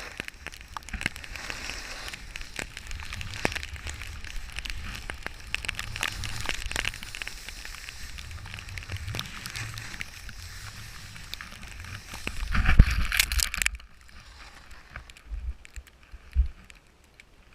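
Snowboard sliding over snow, a scraping, crackling hiss with many small clicks, and wind buffeting the camera's microphone as a low rumble underneath. It swells near the end and then stops abruptly, leaving near quiet broken by a couple of dull thumps.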